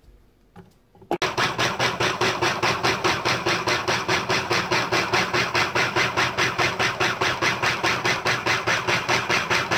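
Electric food processor switched on about a second in, its motor running steadily with a regular fast pulsing, several beats a second, as the cutter blade chops a bowl of peeled garlic cloves and ginger.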